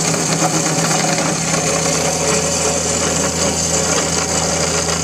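Power saw running steadily as it cuts through 1-inch DOM steel tubing.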